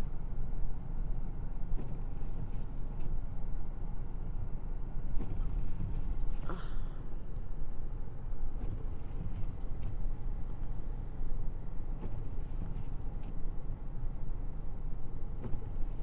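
Car engine idling with a steady low rumble, heard from inside the stopped vehicle's cabin.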